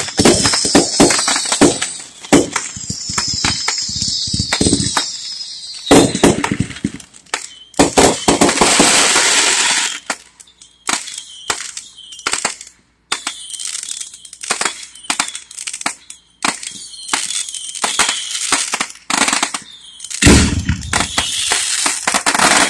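Aerial fireworks going off in quick succession: a dense run of bangs with crackling and hissing between them, a couple of short lulls, and a heavier boom near the end.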